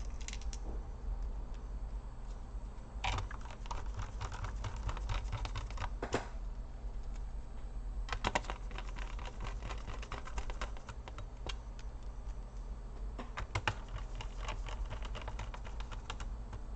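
Small screwdriver driving short screws into a laptop's plastic bottom case: several clusters of light clicking and ticking, over a low steady hum.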